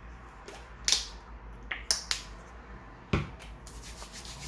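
Packaging being handled during an unboxing: four sharp clicks and snaps, one about a second in, two close together near two seconds, and a heavier knock just after three seconds.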